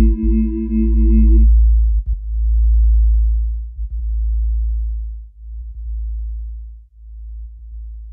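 Electronic music ending: the synth chord tones cut off about a second and a half in, leaving only a deep sub-bass drone that swells and dips in slow pulses and grows quieter toward the end.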